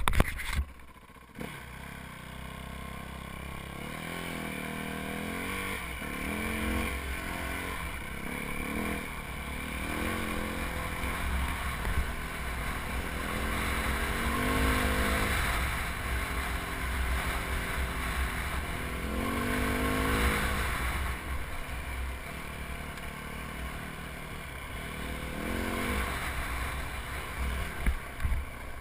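Yamaha WR450F dirt bike's single-cylinder four-stroke engine, revving up and dropping back several times as the bike rides a trail. A constant low wind rumble sits on the helmet-mounted microphone.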